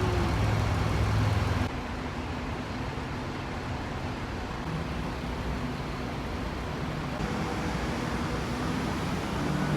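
Steady city street traffic noise, with a louder low rumble from a vehicle in the first second and a half that cuts off abruptly.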